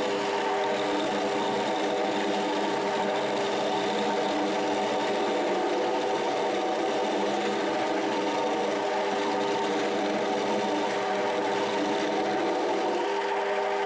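A 7x14 mini lathe running steadily, its motor and gear train giving a constant whine over a light hiss.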